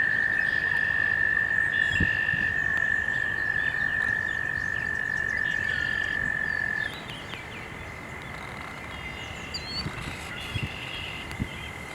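A frog trilling in one long, steady, high note that cuts off suddenly about seven seconds in, while a second, fainter frog trills on at a slightly higher pitch. A few low thumps come near the start and near the end.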